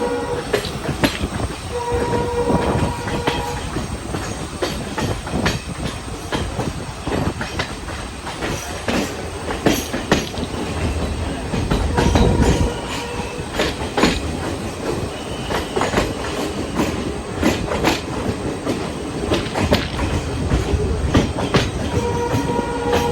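Railway train running steadily on the line past Dudhsagar falls: a constant rolling rumble with many sharp clicks of wheels over rail joints. A held tone sounds for a second or two about two seconds in, again about twelve seconds in, and near the end.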